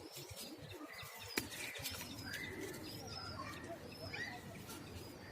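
Pigeons cooing with birds chirping in short rising and falling calls, and one sharp click about a second and a half in.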